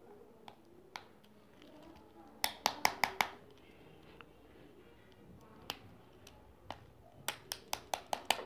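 Sharp little clicks and taps of a smartphone's plastic casing and small tools being handled during disassembly: a quick cluster of about five clicks a few seconds in, scattered single clicks, and a faster run of about seven near the end.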